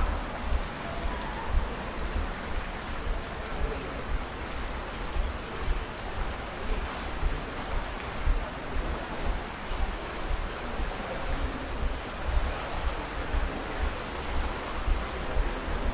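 Steady rush of running water in Cheonggyecheon, the walled stream channel, with gusts of wind rumbling on the microphone.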